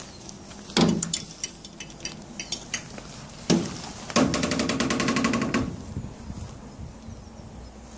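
Knocks and clatter on a rusty steel railway wagon as someone climbs up onto its deck: two heavy thuds with sharp clicks between them, then a fast rattle lasting about a second and a half.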